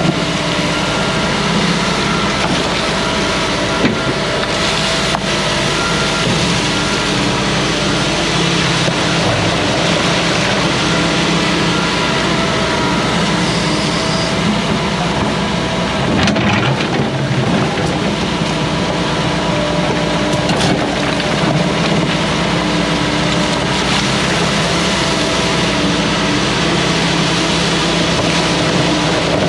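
Hyundai tracked excavator's diesel engine running steadily as it digs and swings its bucket among shoreline rocks, with a couple of short knocks about four and five seconds in.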